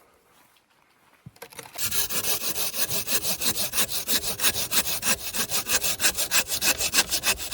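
Hand saw cutting through firewood: after a near-silent second or two, rapid, even back-and-forth strokes of the blade through the wood.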